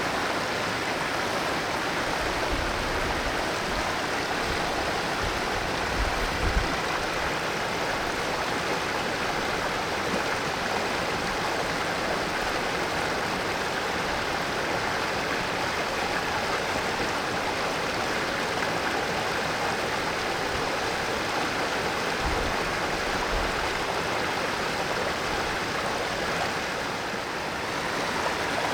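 Mountain valley stream flowing, a steady even rush of water, with a couple of brief low bumps about six seconds in and again after twenty seconds.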